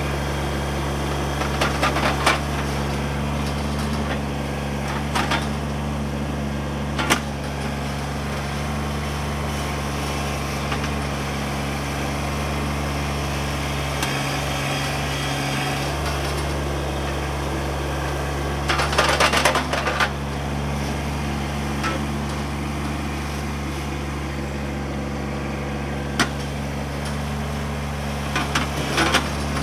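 Kubota B2601 compact tractor's three-cylinder diesel engine running steadily under loader work, with knocks and clattering as the stump bucket digs and strikes dirt and roots: a few single knocks early, a cluster about two-thirds of the way through, and several more near the end.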